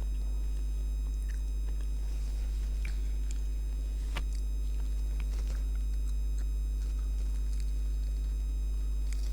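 Steady low electrical buzz from a light, running unbroken with a few fixed higher tones over it. Over it come scattered faint crisp clicks and crunches of someone eating twisted donuts.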